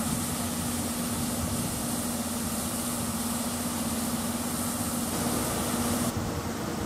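Steady mechanical hum of a train standing at the station, with a constant low tone and a hiss over it. The hiss drops off abruptly about six seconds in.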